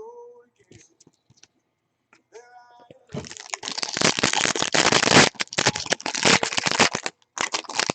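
Trading card pack wrapper being torn open and crinkled: a dense crackling rustle that starts about three seconds in and runs for roughly four seconds, with a brief break near the end.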